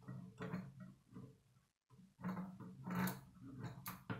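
K'nex plastic pieces being handled and pushed together: uneven clicking and rattling, with two sharp snaps about three and four seconds in.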